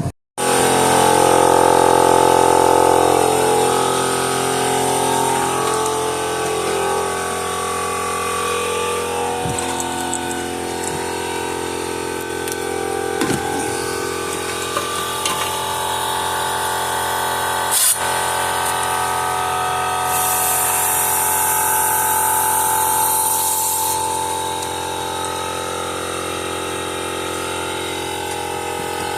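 Ridgid 18 V cordless one-gallon air compressor running steadily, its motor and pump loud. There is a sharp click about eighteen seconds in, then a high hiss of air lasting about four seconds.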